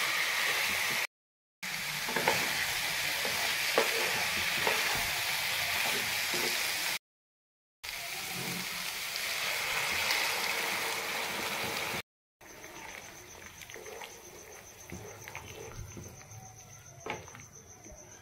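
Gular (cluster fig) and potato pieces sizzling loudly in hot oil in a non-stick pan, with clicks and scrapes of a spatula stirring against the pan; the sound breaks off into silence a few times. In the last third, after water goes in, it drops to a much quieter simmer of the watery curry with occasional spatula taps.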